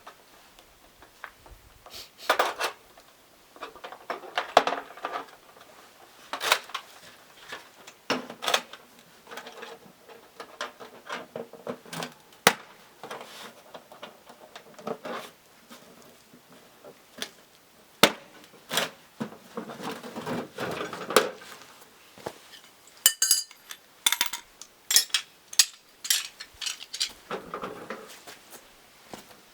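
Irregular clinks and knocks of dishes and utensils being handled, some ringing briefly, with a quick run of sharp clinks near the end.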